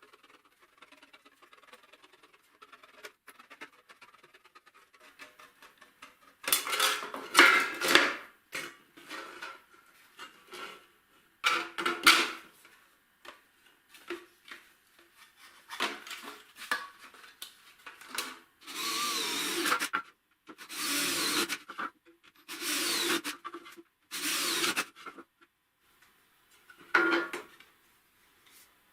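A power tool running in about eight short bursts of roughly a second each, separated by quieter scraping and handling noises.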